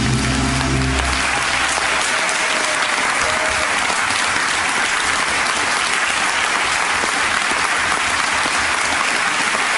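Audience applauding, a dense steady clapping. The last low notes of music fade out in the first second or two.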